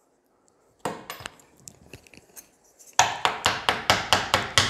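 A light knock about a second in, then, from about three seconds in, a fast even run of sharp knocks on wood, about four a second.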